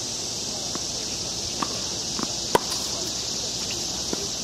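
Tennis ball struck by rackets and bouncing on an outdoor hard court: a handful of sharp pops, the loudest a little past halfway, over a steady high drone of insects.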